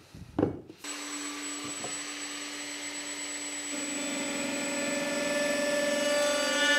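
Table-mounted router spinning at speed with a steady high whine. From about four seconds in, a small roundover bit cuts into the edge of the wooden box, and the sound grows louder and fuller.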